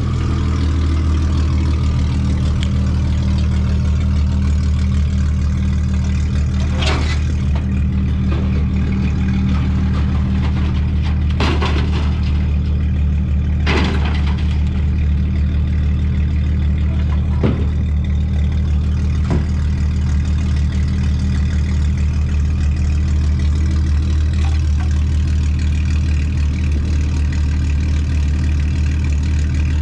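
A truck engine running steadily with a deep, even drone, and a few brief rattles or knocks over it.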